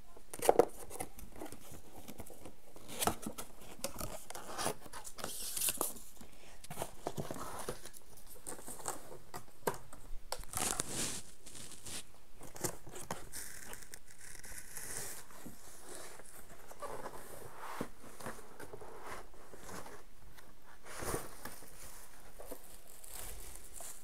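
Packaging being handled: irregular rustling, crinkling and tearing, with scattered clicks and knocks and a sharp double knock about half a second in.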